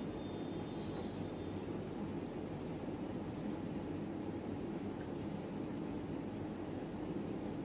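A cloth rubbing across a whiteboard, wiping off marker writing in a steady continuous swish.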